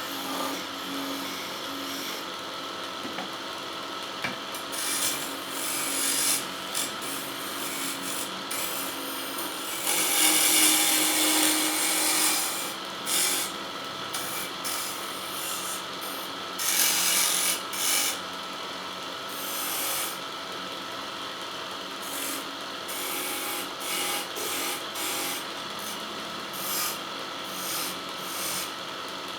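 Wood lathe running with a steady motor hum while a hand tool scrapes the spinning wooden workpiece in repeated bursts of hiss. The longest burst comes about ten seconds in.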